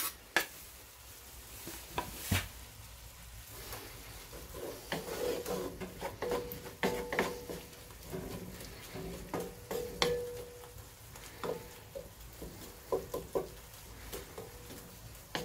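A homemade wooden spatula stirring and scraping a frying mix of bacon lardons, onions, mushrooms and chopped tomatoes in a cast-iron Dutch oven. The food sizzles softly under irregular knocks and scrapes of the spatula against the pot.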